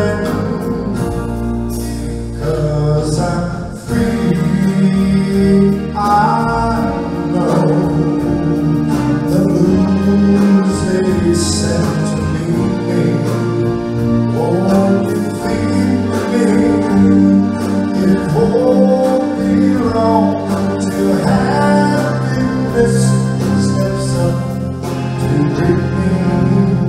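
Male singer singing a slow song live with a band of keyboards, electric guitar, bass and drums.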